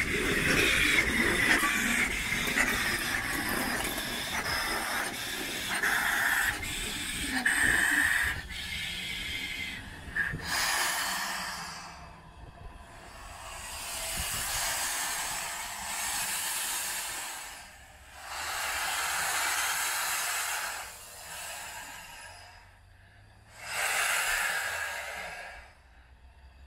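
Steam locomotive: rumbling and hissing for the first several seconds, then four separate hisses of escaping steam, each two to four seconds long, with short quieter gaps between them.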